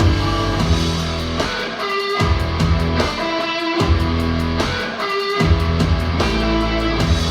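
Rock music with electric guitar, bass and drums, played back through a KEF iQ1 two-way bookshelf speaker. The beat is steady, and the bass drops out briefly every second and a half or so.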